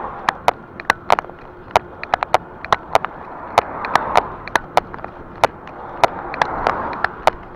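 Sharp, irregular rattling clicks, several a second, from the e-bike and its handlebar-mounted camera jolting over the road surface. Beneath them, the rush of oncoming cars passing at the start, about four seconds in and near the end.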